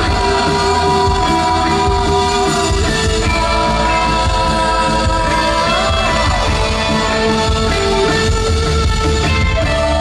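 A rock band playing live with a male lead singer: sung vocal lines with long held notes over guitar, bass and drums, loud and steady.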